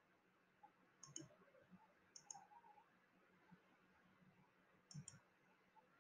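Near silence with a faint low hum and three faint double clicks: about a second in, a second later, and again about five seconds in.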